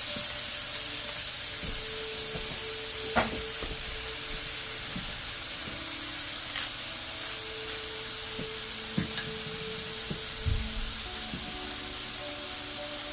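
Smashburger patties sizzling in a hot cast iron braiser, a steady frying hiss, with a few light knocks, the sharpest about three seconds in.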